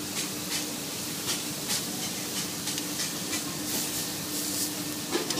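Beef filet steaks sizzling on a charcoal grill: a steady hiss with scattered sharp crackles, over a steady low hum.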